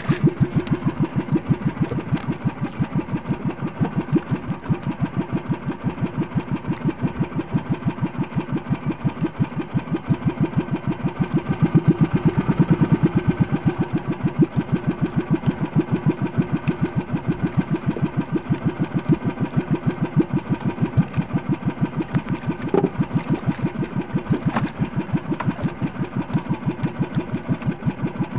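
Engine of a small outrigger boat running steadily, its exhaust beating in even pulses several times a second.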